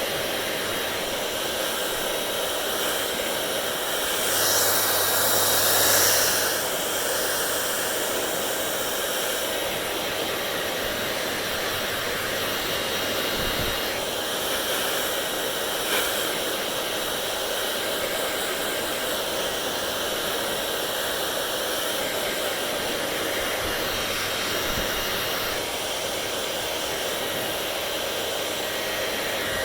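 Hair dryer blowing steadily, getting louder for a couple of seconds about four seconds in.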